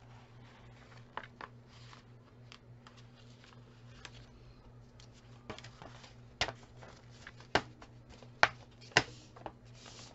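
Paper envelopes rustling and sliding against each other as one is slipped into another, with a few sharp taps in the second half.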